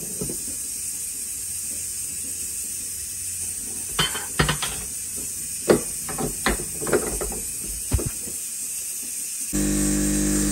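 Espresso machine: metal clinks and knocks as the portafilter is handled and locked into the group head, then the machine's pump starts with a sudden steady buzz about a second before the end as the shot begins to pour.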